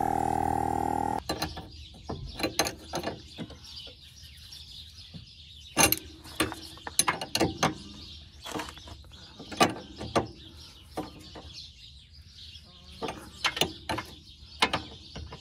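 A handheld electric tire inflator runs with a steady whine and cuts off about a second in. Then a ratchet wrench clicks in short, irregular runs while fasteners are worked on under the car's front suspension.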